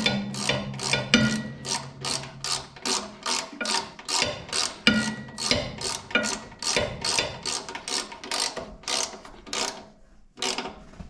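Hand ratchet wrench clicking as it turns a fastener, a steady run of clicks about three a second that stops near the end.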